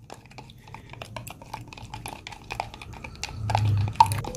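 Silicone spatula stirring water in a plastic measuring jug to dissolve baking soda: light, irregular clicks and scrapes against the plastic, with a sharper knock about four seconds in.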